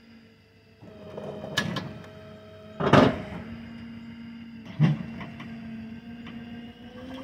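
Steady machinery hum from a hydraulic shed-hauling trailer as it lowers a wooden shed off its tilted bed, with a loud clunk about three seconds in and a sharp knock near five seconds.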